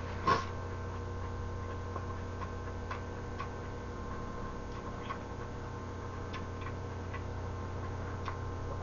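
Faint, irregular small clicks of a mouth chewing a lettuce wrap of stir-fried gopchang, over a steady low electrical hum.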